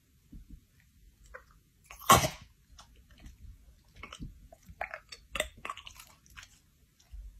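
A chocolate Labrador licking and mouthing a cat's head: soft wet smacking and chewing sounds in short, irregular bursts, with one louder breathy burst about two seconds in.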